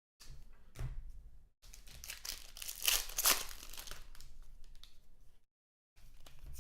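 Foil trading-card pack wrapper being crinkled and torn open, with cards being handled. The crackling is loudest about three seconds in, stops briefly, then starts again near the end.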